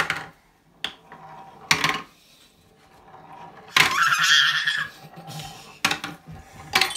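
Wooden balls clacking onto and down the tracks of a wooden marble-run toy in a handful of sharp separate knocks. About four seconds in comes the loudest sound, a bright, noisy clatter about a second long.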